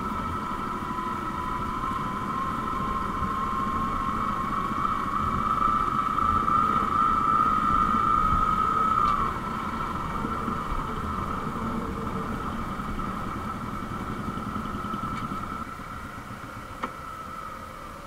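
Motorcycle engine running while riding along a rough dirt track, with a steady whine that climbs gently and grows louder, then eases off about nine seconds in. It gets quieter near the end as the bike slows.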